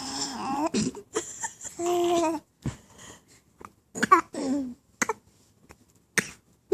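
A seven-month-old baby babbling in short vocal sounds, with one held, steady-pitched note about two seconds in and another sound falling in pitch about four seconds in.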